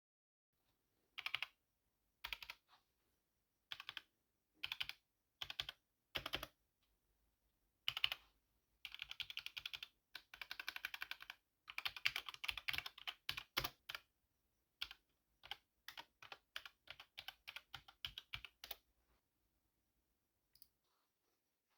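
Typing on a HyperX Alloy Elite 2 mechanical keyboard with linear HyperX Red switches and pudding keycaps: short runs of keystrokes at first, then fast continuous typing in the middle, thinning out and stopping a few seconds before the end.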